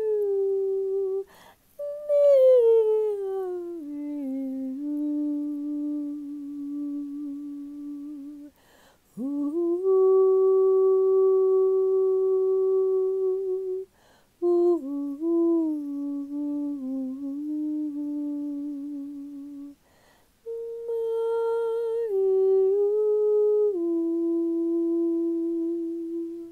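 A woman's unaccompanied vocal toning: a series of long, wordless held notes, several gliding or stepping down in pitch. Short pauses for breath come between them.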